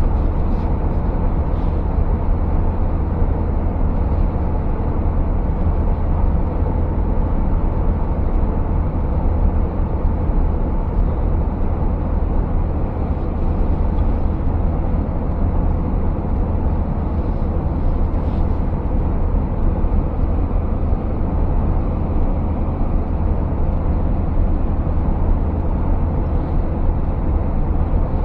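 Steady low drone inside the cab of a Scania S650 V8 truck cruising at an even speed: the engine's low hum blended with tyre and road noise.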